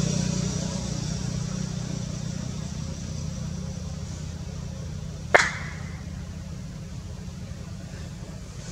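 Low, steady motor-vehicle engine drone slowly fading away. A single sharp click cuts in about five seconds in.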